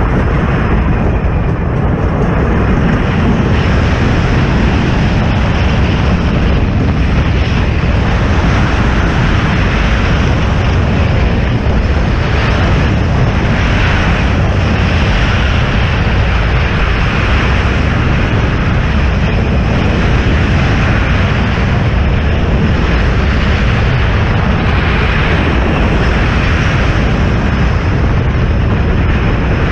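Mine Blower wooden roller coaster train running at speed, heard from a camera mounted on the train: a loud, unbroken rush of wind and track rumble with no let-up.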